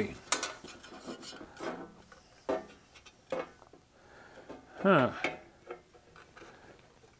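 Sheet-metal instrument chassis and case being handled: scattered light metallic clicks and knocks with soft rubbing as the panel and its wires are moved. A short wordless murmur of a man's voice, falling in pitch, about five seconds in.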